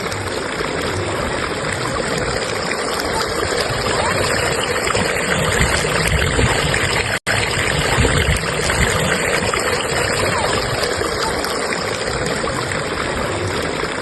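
Flowing stream current: a steady rush of water that cuts out for an instant about seven seconds in.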